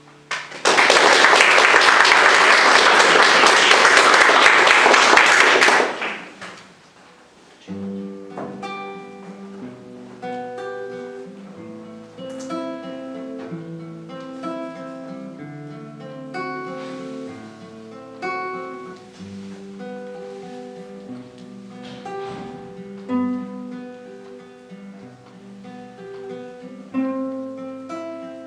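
Audience applauding for about five seconds, then, after a brief pause, a duo of guitars starts a piece, plucked melody notes over a bass line.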